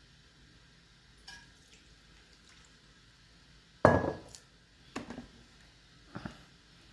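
Glassware clinking and knocking against a counter while a cocktail is mixed: one loud sharp knock about four seconds in, with a faint click before it and two lighter knocks after.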